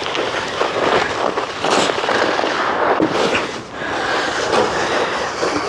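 Snow shovel scraping and crunching through heavy snow, a dense run of crackles and scrapes with no break.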